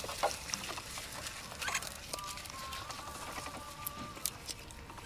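Capybaras biting and chewing leaves held out to them on a stick: scattered crisp crunches and rustles. A faint, thin, wavering whistle-like tone runs for about two seconds in the middle.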